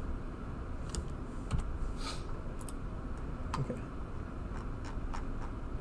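Irregular clicks of typing on a computer keyboard, a few keystrokes spread over several seconds, over a steady room hum.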